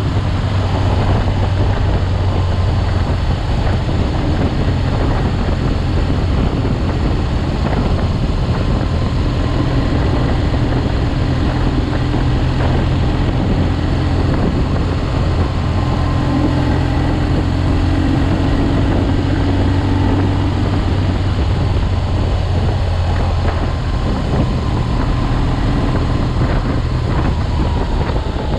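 BMW R 1200 GS boxer-twin engine running steadily at cruising speed while the motorcycle is ridden, mixed with a steady rush of wind and road noise.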